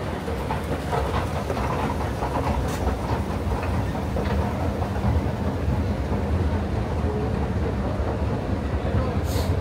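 Escalator running under a rider: a steady low rumble from its steps and drive, with faint clicks and a short hiss near the end.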